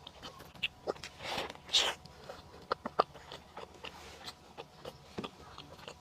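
Close-miked chewing of a saucy beef burger: wet mouth clicks and smacks, scattered irregularly, with one louder noisy swell a little before two seconds in.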